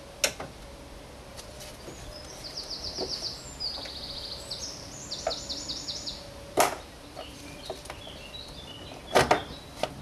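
Sharp clicks and knocks of hands working plastic connectors and hoses in a car's engine bay: one about a second in, one about two-thirds through and a cluster near the end. A small songbird sings fast trilled runs of high notes in the background through the middle.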